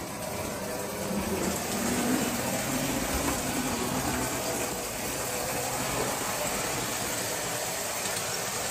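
Lionel prewar 9U Standard Gauge electric locomotive running on tinplate track with its freight cars: a steady motor hum and gear whine over the rumble of metal wheels on the rails.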